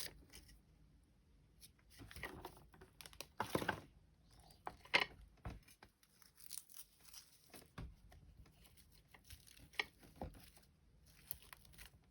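Intermittent rustling and crinkling of paper and plastic craft materials being handled, with a few light taps on the desk.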